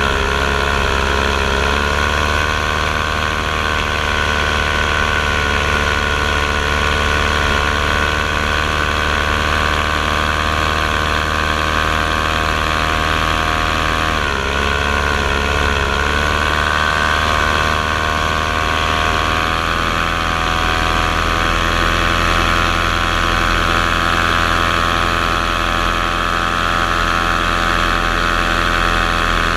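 Motors and propellers of the low-flying aircraft carrying the camera, running steadily with a pitched whine. The pitch dips briefly about 14 seconds in and shifts slightly a second or two in and again around 20 seconds.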